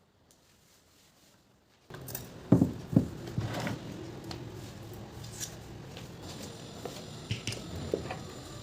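Near silence, then about two seconds in a steady background starts suddenly, with a few sharp knocks and clicks of household objects being handled, the loudest two about half a second apart.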